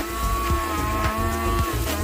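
Petrol brush cutter (grass trimmer) engine running steadily at high revs while cutting grass, a high-pitched whine, with irregular sharp ticks as the cutting head strikes stems and debris.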